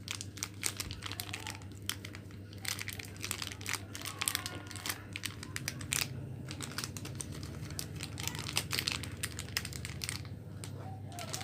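Plastic-foil coffee-sachet wrappers crinkling and crackling in irregular runs of small clicks as they are handled and woven by hand, over a steady low hum.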